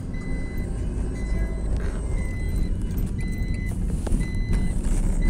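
A car's dashboard warning beeper sounding a steady series of short high beeps, over the low rumble of the car's engine and road noise inside the cabin.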